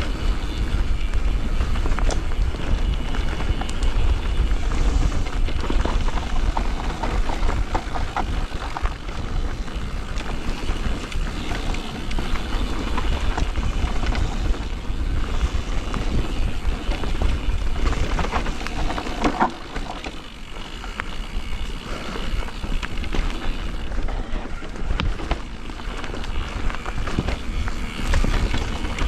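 E-mountain bike ridden down a dry, dusty trail: wind rushing over the microphone as a steady rumble, tyres rolling and skidding on loose ground, and knocks and rattles from the bike over bumps, one clear knock about two thirds through.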